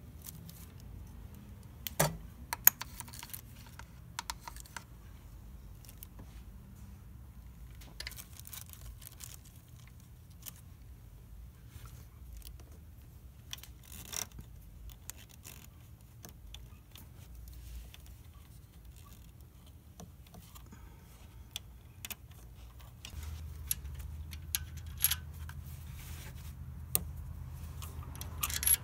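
Scattered light metallic clinks and taps as a camshaft bearing cap and its bolts are set in place by hand on a Toyota 5S-FE engine's cylinder head. A low steady hum comes in about 23 seconds in.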